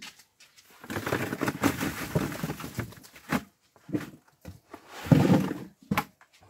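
Freshly picked cucumbers tumbling out of a plastic bucket into a plastic-lined cardboard box, a dense clattering of many small knocks, in two spells.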